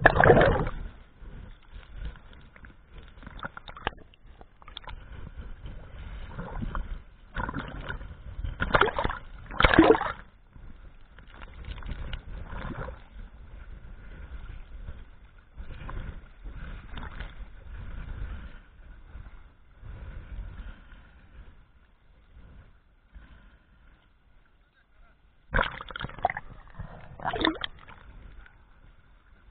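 Water splashing, sloshing and bubbling, muffled by a camera's waterproof housing at the sea surface. It comes in irregular louder bursts, with a faint steady hum underneath.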